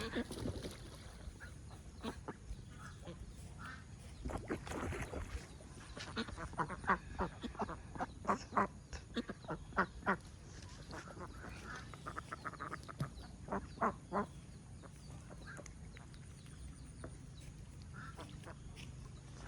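Domestic ducks quacking in a string of short calls, busiest in the middle of the stretch, with a few more later.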